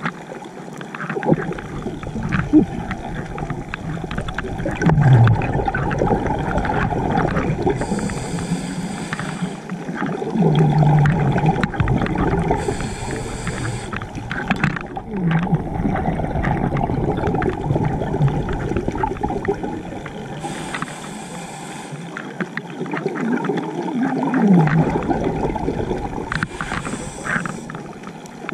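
Scuba diver breathing through a regulator underwater: four short hissing inhalations, each followed by a long, rumbling, bubbly exhalation with low warbling tones.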